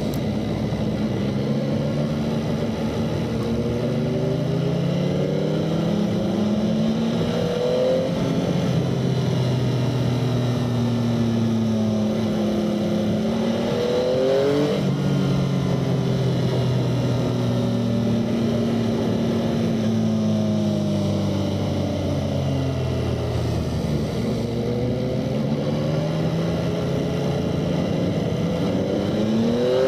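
A motorcycle engine heard from on board, its revs rising and falling through a run of bends. Long slow falls as it slows for the corners alternate with short rising pulls, three of which end in a sudden break.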